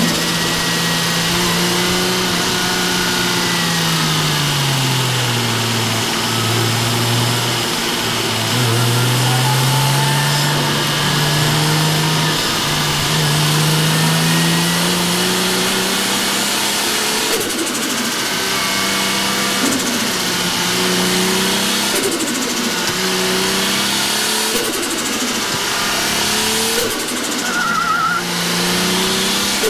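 Toyota JZX drift car's inline-six engine, heard from inside the cabin while being driven hard on track, revving up and down with its pitch climbing and falling many times.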